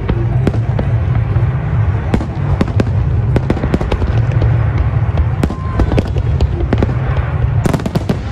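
Large aerial fireworks display: many sharp bangs and crackles of bursting shells in quick succession over a continuous low rumble.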